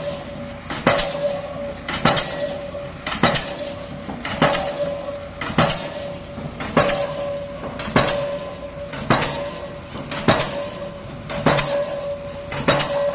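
Steady, even hammering blows, about one every second and a bit, each a sharp metallic strike with a short ring, over a steady machine hum.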